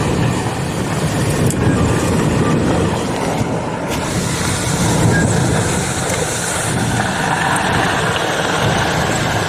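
Steady rumble and hiss inside a car in torrential rain: heavy rain on the car body over the vehicle's running noise.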